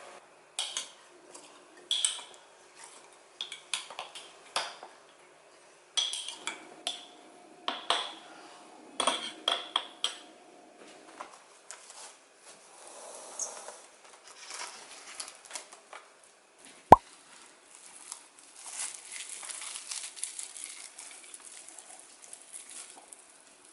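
Dishes and utensils clinking and knocking in a string of short, sharp taps for about ten seconds. A single sharp click comes about seventeen seconds in, and a softer scraping rustle follows near the end.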